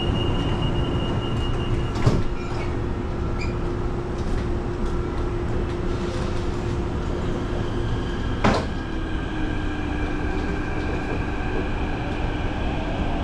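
Singapore MRT Thomson-East Coast Line train running, heard from inside the carriage: a steady rumble with a steady whine, and two sharp knocks, about two seconds in and past the middle.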